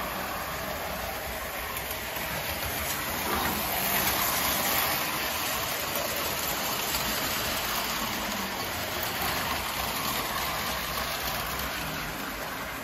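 Prewar Lionel Standard Gauge 390E toy steam locomotive and its freight cars running on tinplate track, a steady rolling noise of metal wheels on rail. It grows louder about four seconds in as the train passes close, then eases off.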